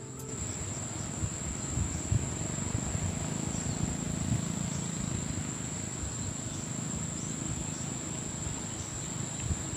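Insects trilling steadily on one high, unchanging note, with a low, uneven rumble of wind on the microphone underneath.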